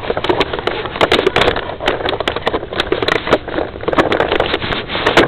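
Irregular rustling with many sharp clicks and knocks: handling noise from a camera fixed to a plastic Nerf blaster that is being carried and swung around.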